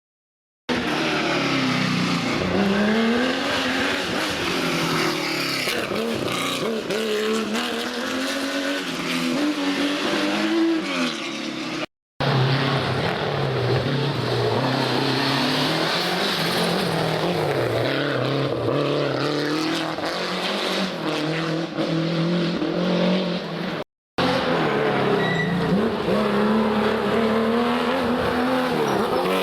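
Historic rally car engines running hard at full throttle, the pitch climbing and dropping again and again with gear changes, in three clips split by brief silent cuts about 12 and 24 seconds in.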